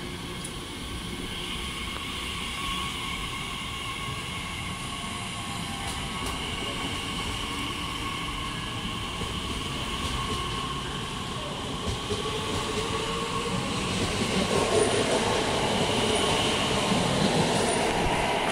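Class 345 electric multiple unit running past the platform: rumble of wheels on the rails with a steady high whine, getting louder near the end as the front end goes by.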